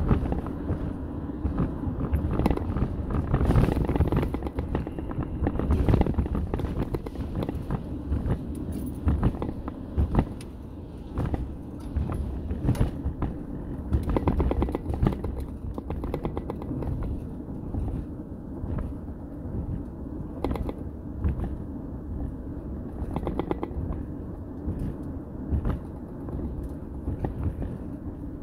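Road and engine noise heard from inside a truck's cab while driving on a concrete highway: a steady low rumble with frequent short knocks and rattles.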